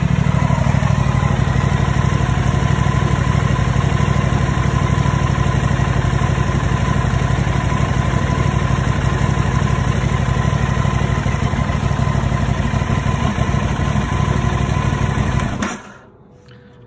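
Aprilia RS660 parallel-twin engine idling steadily in first gear, rear wheel spinning on a paddock stand. It stops abruptly about a second before the end.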